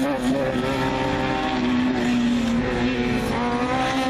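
Race car engine running hard at high revs, one loud sustained note whose pitch sags slightly and climbs back a couple of times as the driver lifts and gets back on the throttle.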